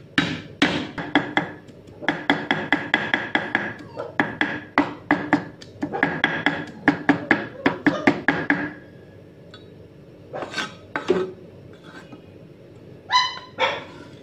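Heavy steel cleaver rapidly chopping garlic on a thick wooden chopping board, several strikes a second with a metallic ring. The chopping stops about nine seconds in, leaving only a few scattered knocks.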